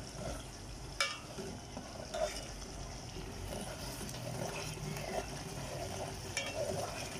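Curry masala frying in a pot while a spoon stirs it: a steady sizzle with a few sharp clicks of the spoon against the pot. The masala is at the roasting (bhuna) stage.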